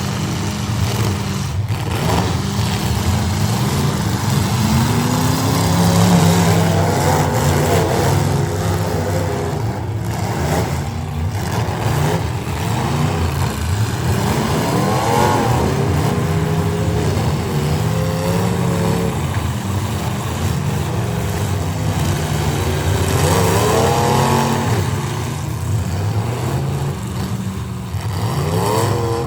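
Engines of full-size demolition derby cars running hard and revving, the pitch rising and falling again and again, with more than one engine heard at once.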